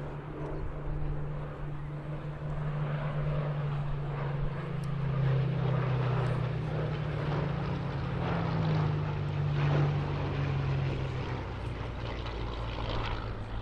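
Rolls-Royce Merlin V12 piston engines of WWII propeller fighters flying past: a steady deep drone that swells to its loudest in the middle, dips a little in pitch, and eases off near the end.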